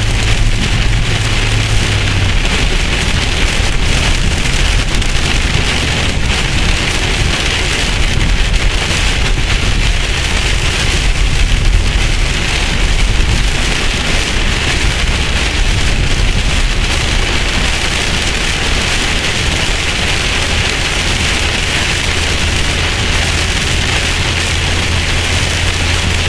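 Heavy rain pelting a car's windshield and roof, heard from inside the cabin, with a steady low hum underneath.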